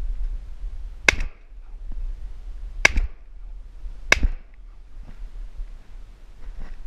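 Shotgun fired three times in quick succession at a flying duck: a sharp blast about a second in, a second almost two seconds later, and a third just over a second after that.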